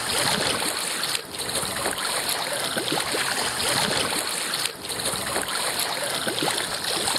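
Water splashing and gurgling against the bow of a kayak that is being paddled, an irregular steady wash with small splashes.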